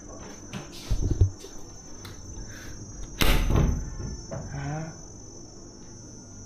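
A steady high-pitched, insect-like drone, with two dull thumps about a second in and a louder sharp bang about three seconds in, as the wooden connecting door of a hotel room is handled; a faint voice follows briefly.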